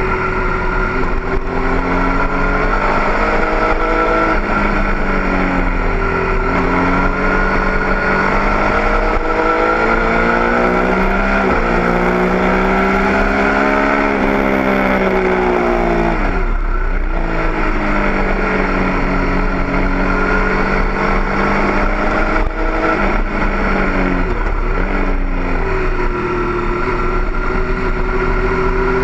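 Stock 2008 Triumph Daytona 675's three-cylinder engine at full track speed, revs rising and falling through gear changes and corners. The revs drop sharply about halfway through and again near the end before climbing once more.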